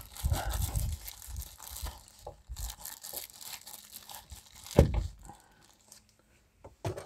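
Rustling and light knocks of small items (sewing kits, a lighter) being stuffed back into the pocket of a car's sun visor, with one sharper knock about five seconds in.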